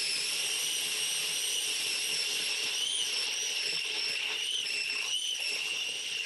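Countertop blender motor running at steady speed, a high whine with its pitch wavering slightly now and then, blending strawberries and coconut milk into a smooth mixture.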